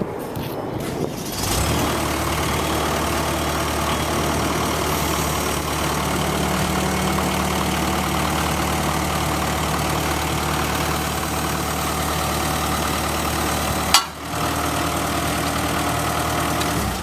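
Cat 226B skid steer loader's diesel engine and hydraulics running steadily while the lift arms are raised. The engine comes up about a second and a half in. A single sharp click and a brief drop come near the end, and then it cuts off.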